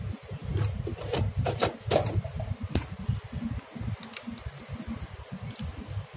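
Singer 4432 Heavy Duty electric sewing machine running fast with a darning foot, its needle stitching a zigzag free-motion embroidery while the fabric is slid by hand under the foot, with scattered light clicks.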